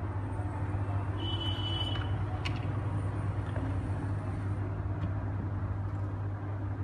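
Hot air rework gun blowing steadily to heat the speaker's charging jack for desoldering, a continuous low whir and hum. A short high tone sounds briefly about a second in, and there is a faint click a little later.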